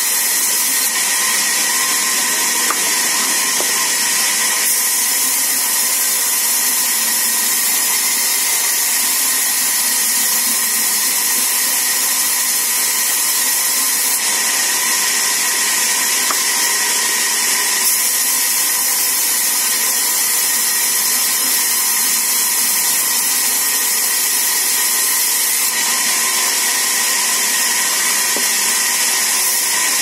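Sawmill band saw running: a loud, even hiss with a faint steady whine underneath.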